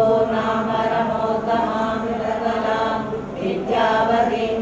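Women's voices chanting a devotional hymn together in a steady sing-song, with a short break for breath about three seconds in before the next line.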